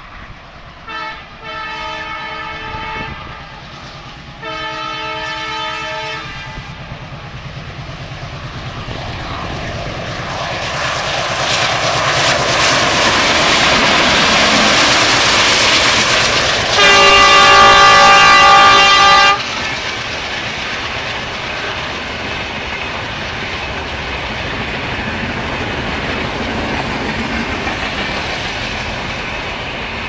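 WDM3D ALCO diesel-electric locomotive sounding its horn in two long blasts as it approaches. Its engine and wheel noise then build as it comes past, and it gives a third, louder horn blast while alongside. After that the passenger coaches roll past with a steady clickety-clack of wheels over rail joints.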